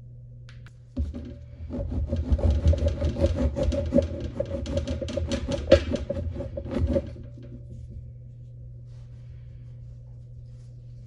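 A knife sawing through a crusty Italian bread loaf: quick back-and-forth rasping strokes for about six seconds, starting about a second in, over a steady low hum.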